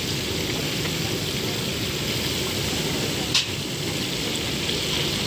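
Masala-coated fish deep-frying in large karahi woks of hot oil, sizzling steadily. One sharp clink about three and a half seconds in.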